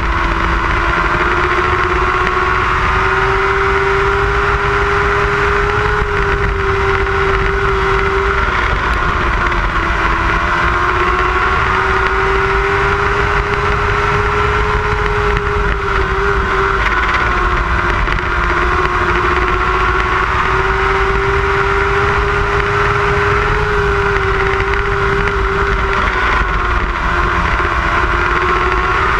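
Motorcycle-engined lightning sprint race cars running at speed around the oval. The high engine note rises and falls steadily about every eight seconds as they lap.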